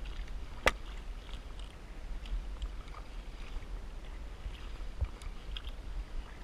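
Paddle strokes dipping and splashing beside an inflatable canoe, over a steady low rumble. A single sharp knock comes about a second in, and a duller thump near the end.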